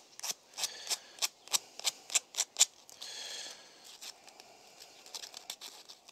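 Disc brake pad being sanded by hand on fine sandpaper to break its edges and take off the glazed surface that makes the brake squeal: short quick rasping strokes, about three a second, then a longer scrape about three seconds in and fainter rubbing after.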